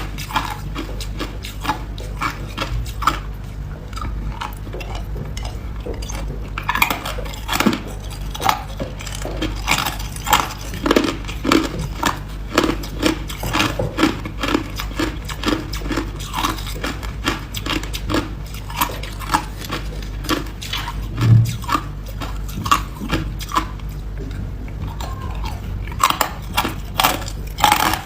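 A person biting and chewing hard ice close to the microphone: a steady run of sharp, cracking crunches, about two a second through the middle stretch.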